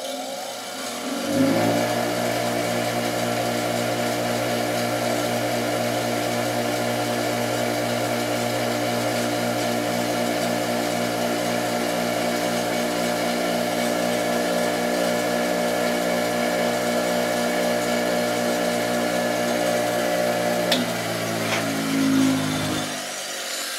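Harbor Freight 6-inch bench grinder switching on and running with a steady motor hum. It is switched off near the end and spins down to a stop. It still vibrates enough to make its wheel-rim stand move, even with split rubber hose fitted on the rim.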